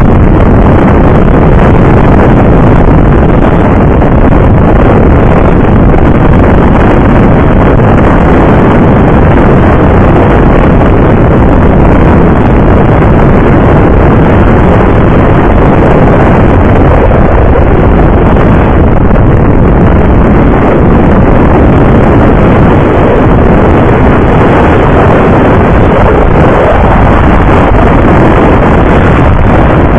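Loud, steady wind rush over the microphone, mixed with the motorcycle's engine and road noise at highway cruising speed.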